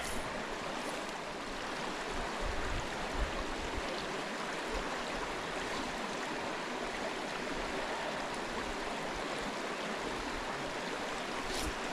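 Small brook running steadily over stones below a culvert: an even, constant rush of flowing water, with a few faint low rumbles about three seconds in.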